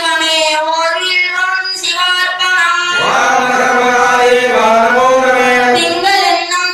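A voice singing a slow devotional chant, with long held notes that slide in pitch and one long note held through the middle.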